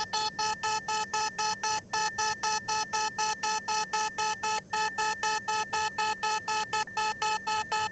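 Synthesized emergency alert alarm: a buzzy electronic tone at one steady pitch, pulsing rapidly at about five beeps a second.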